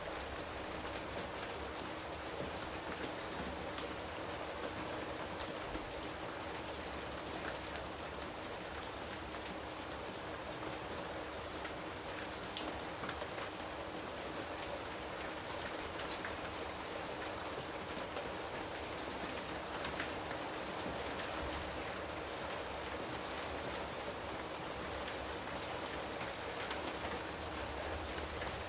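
Steady rain falling in a jungle, an even hiss with individual drops ticking and pattering on leaves and surfaces throughout.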